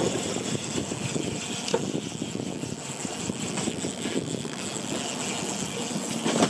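Outboard motor running steadily at low speed, with wind rushing over the microphone.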